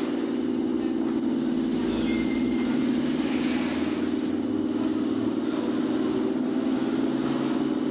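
Passenger train moving along a station platform, with a steady low hum.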